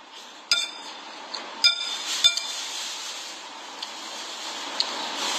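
Metal spoon clinking against a ceramic plate three times in the first two and a half seconds, each strike ringing briefly, over a steady hiss of air conditioning.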